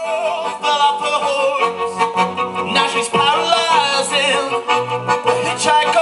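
Live song: a male voice singing into a microphone over a bowed violin.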